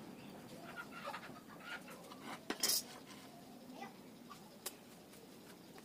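Faint handling sounds of a wooden board and a steel square on a concrete floor: a few light clicks and one short scrape about two and a half seconds in.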